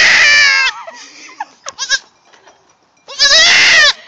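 Newborn goat kid, about four hours old, bleating loudly for its mother: a long wavering bleat at the start, a short one in the middle, and another long bleat about three seconds in.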